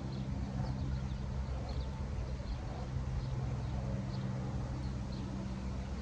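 Repeated short scraping strokes of a Terra Knives Forester's Magnacut blade shaving curls off a wooden stick to make a feather stick. Under them runs a steady low mechanical hum, like a distant motor.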